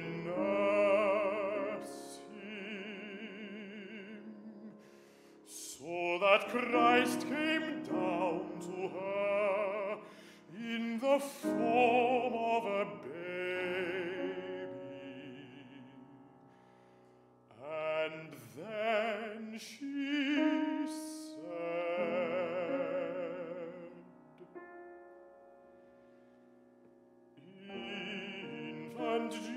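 A baritone singing a classical art song with wide vibrato, accompanied by a Steinway grand piano. The singing breaks off twice, about halfway through and again near the end, leaving only soft held piano tones before the voice comes back.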